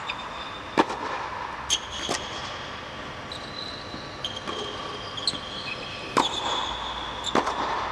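Tennis shoes squeaking on an indoor hard court during footwork, short high squeals several times, with about five sharp knocks of tennis balls being struck or bouncing.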